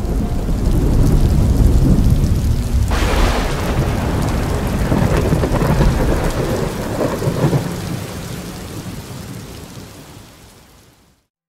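Thunderstorm: rumbling thunder over heavy rain, with a sharper crash of thunder about three seconds in. It fades out near the end.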